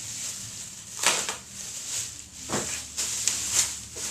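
Handling noises from unpacking a camera: a few short rustles and knocks, about one every second.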